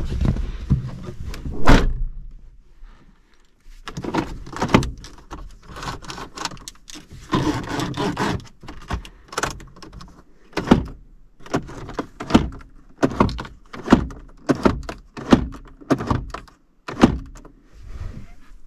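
Doors and fittings of a 2010 Fiat Panda being worked by hand: one loud thunk about two seconds in, some handling clatter, then a run of short clunks a little over one a second near the end.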